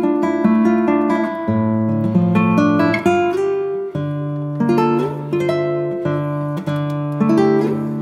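Background music: an acoustic guitar playing plucked notes and chords at an even pace.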